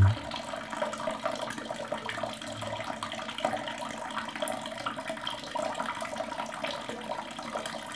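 Water running steadily from a wall tap and splashing into cupped hands.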